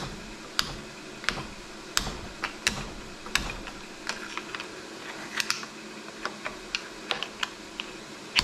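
Irregular sharp metal clicks and taps of a screwdriver blade prying and scraping inside the bore of an old hydraulic shop press, working out the worn leather cup packing.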